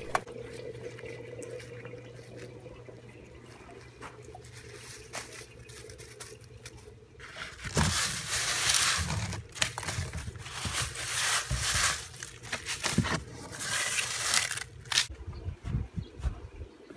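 Dry fallen leaves and papery bougainvillea bracts rustling and crackling as they are gathered up and tipped into a tub, in repeated irregular bursts from about seven seconds in. Before that there is only a faint steady hum.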